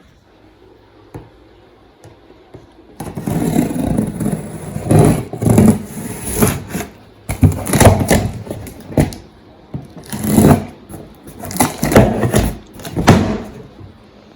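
Irregular scraping and rustling of packaging as a new set of mufflers is unboxed and handled. A run of bursts starts about three seconds in and stops shortly before the end.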